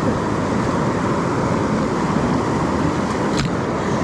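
Steady rushing of a creek running high, with a single sharp click near the end.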